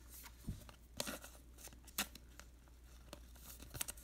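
A 2019 Topps Heritage Minor League Baseball card pack's wrapper being torn open and crinkled, with a few sharp, faint crackles.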